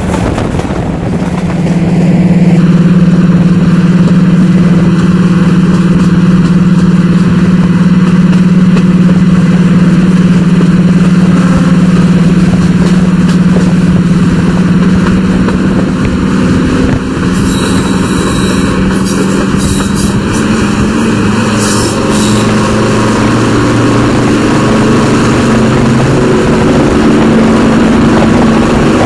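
Class 55 Deltic locomotive's twin Napier Deltic two-stroke diesel engines running under power, heard from a carriage window with wind rush; a steady loud drone that rises about two seconds in, its pitch shifting after about half-way.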